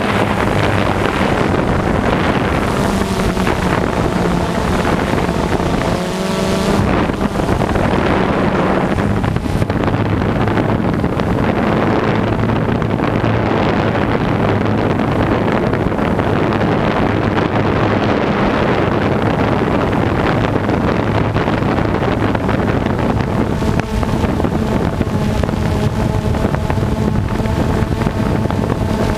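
Quadcopter drone's motors and propellers buzzing steadily, heard from the drone's own camera, with wind rushing over the microphone. A higher whine wavers in pitch a few seconds in and again near the end as the motors adjust.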